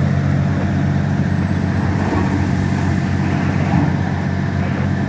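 Heavy diesel engines of a hydraulic excavator and a haul dump truck running steadily with a low drone while the excavator loads the truck.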